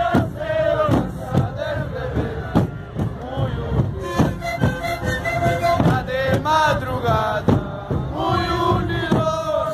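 Sikuri ensemble of Andean panpipes (sikus) playing a tune in unison, over steady bass drum (bombo) beats.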